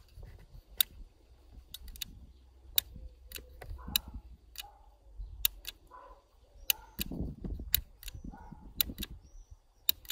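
Sharp, irregular clicks, well over a dozen, from the MFJ-1925 ATAS controller's up/down switch being worked in short taps to step the ATAS-120 antenna down while tuning for lowest SWR. A low rumble of hand handling runs underneath.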